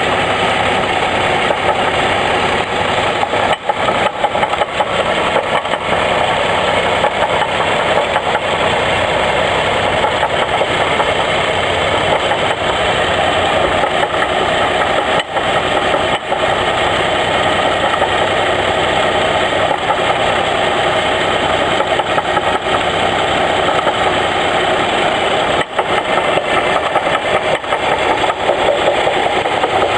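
2002 Chevy Trailblazer's 4.2-litre inline-six engine idling steadily with a knock running through it.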